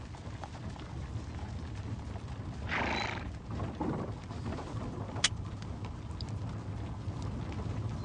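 Horses and a horse-drawn coach on the move: a steady low rumble with scattered faint knocks, a short breathy burst about three seconds in, and a single sharp crack about five seconds in.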